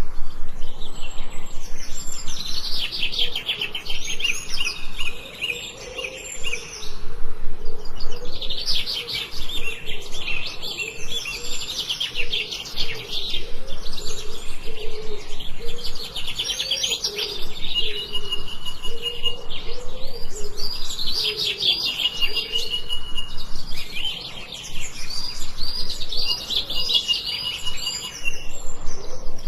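Several forest birds chirping and singing in quick, overlapping phrases, with short level whistled notes now and then.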